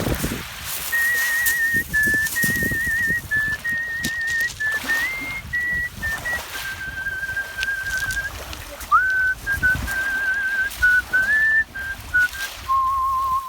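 Artistic whistling of a melody: a single pure whistled tone held in long notes with a fast trill, stepping from pitch to pitch and sliding up into some notes.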